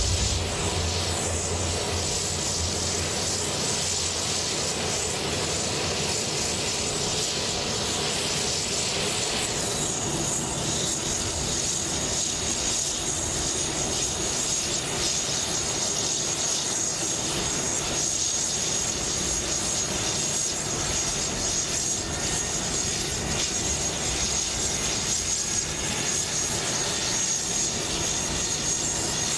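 Sikorsky S-97 Raider compound helicopter's turboshaft engine running on the ground as its coaxial rotors spin up: a steady turbine rush and whine. A high whistle comes up about ten seconds in and holds.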